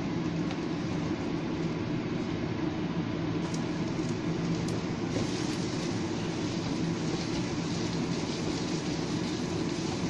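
Spatula stirring and scraping a thick mass of sticky rice, sugar and peanuts in a cast-iron skillet over a steady low hum. A couple of light clicks fall in the middle, and a hiss grows a little from about halfway.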